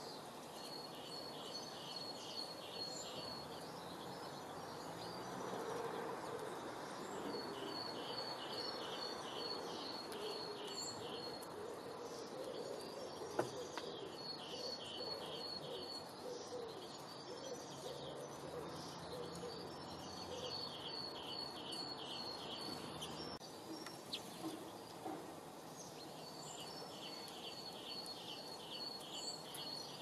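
A small songbird sings a fast run of high, evenly repeated notes, five times, each run lasting two to four seconds, over a steady rushing background noise. A single sharp click sounds about halfway through.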